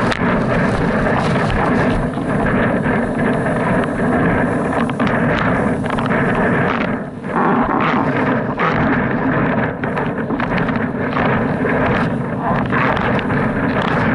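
Steady wind noise buffeting a mast-mounted camera's microphone on a sailing windsurf board, mixed with water rushing under the board; it drops briefly about seven seconds in.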